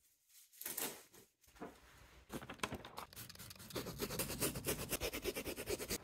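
Microfibre cloth rubbed quickly back and forth over a leather couch cushion, a fast run of rubbing strokes that starts about two seconds in and grows louder.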